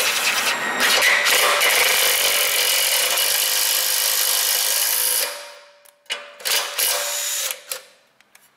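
Cordless impact driver running a thread chaser down rusted exhaust flange studs to clean up their threads. One long run of about five seconds, then a few short bursts about a second later.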